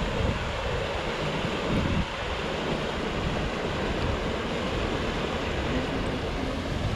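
Wind buffeting the microphone in uneven gusts over the steady rush of a shallow rocky mountain stream.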